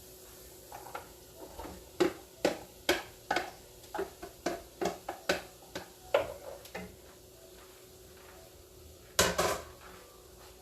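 A spoon knocking against the sides of a cooking pot while stirring vegetables and beans, about two knocks a second, then a louder clatter a little after nine seconds in.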